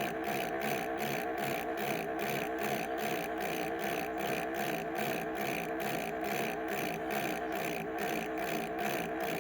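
Computer malfunction sound effect: a steady, glitchy electronic buzz that stutters in even pulses about three times a second.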